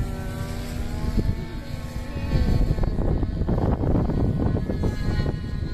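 OS model engine of a radio-controlled P-51 Mustang running steadily in flight overhead, its buzzing drone sliding slightly down in pitch as it passes. From about two seconds in, a loud low rumble covers it.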